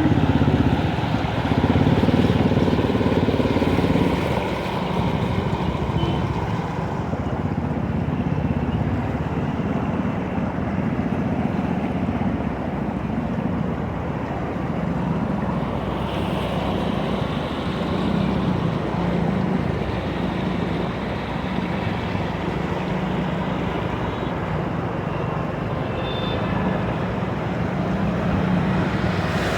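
Electric scooter riding through flood water on a road: steady wind buffeting the microphone over a continuous wash of water and road noise from the tyres.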